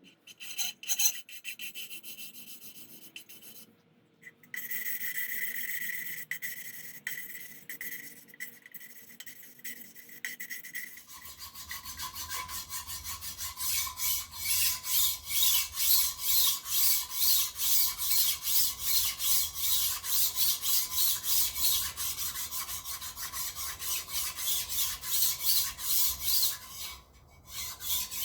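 Hand file rasping across the cast-iron surfaces of a Chrysler 318 cylinder head. The strokes are irregular at first, then settle into a steady rhythm of about two strokes a second from about eleven seconds in: draw filing of the head's gasket mating surfaces.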